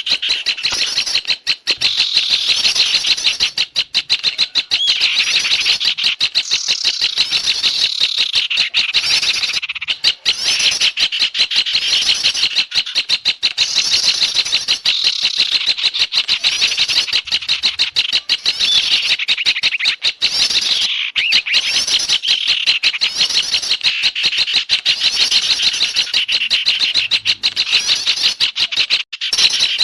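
Dense, unbroken chattering of small songbirds: fast-repeated high notes and trills from several birds at once. It is a bird-lure call track used to draw small garden birds to a trapper.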